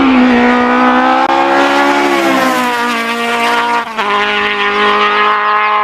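Race car engine sound effect: a loud, high engine note held steady, dipping slightly in pitch about halfway through.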